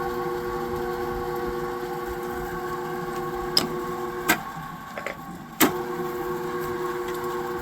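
Clausing 20-inch step-pulley drill press with a 1.5 hp three-phase motor, running steadily at its lowest spindle speed with the power feed engaged. The hum holds several steady tones. A few sharp clicks and clunks come around the middle, and the hum dips out for about a second before resuming.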